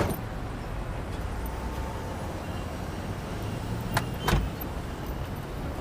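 A car door thuds shut at the start over the low steady rumble of a car. About four seconds in come two sharp clicks close together, the second with a heavier thud, like a door latching and closing.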